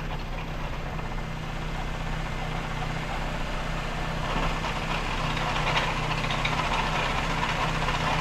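VW Gol G3 engine idling with the clutch pedal pressed, and a rough rubbing noise from the clutch and gearbox area that grows louder about halfway through. The owner takes the noise for a clutch fault rather than a gearbox one.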